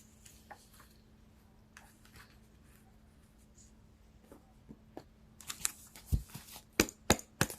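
Tarot cards being handled and shuffled: faint scattered ticks at first, then a quick run of sharp card snaps and clicks in the last two seconds.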